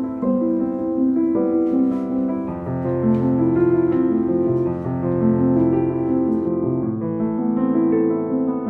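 Background music: gentle piano melody over soft sustained chords.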